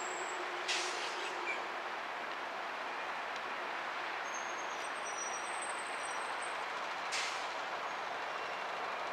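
Steady hiss of road traffic, with two short, sharp hisses: one about a second in and one near the end.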